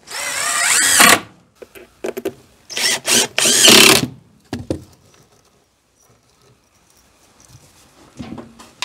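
Cordless drill driving screws into wooden shelf boards: a run of the motor in the first second, then short spurts and a longer run around three seconds in, as screws are sunk. A few faint knocks follow.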